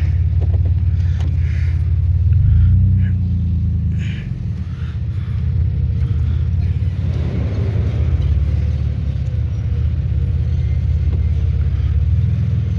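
Pickup truck engine running steadily at low speed, with a brief rise in engine speed about two seconds in.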